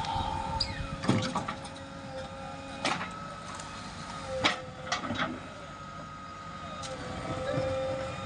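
JCB 3DX backhoe loader's diesel engine running with a steady whine, broken by sharp clanks about one, three, four and a half and five seconds in as the machine works.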